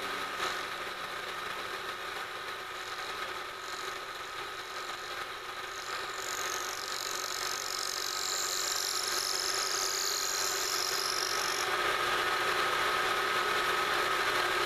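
Milling machine spindle running as an end mill cuts the walls of a pocket in an aluminum block, a steady machining whine. A higher-pitched whine joins for about six seconds in the middle.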